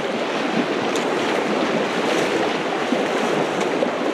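Shallow mountain river rushing steadily over stones, heard from in the water as people wade across it barefoot.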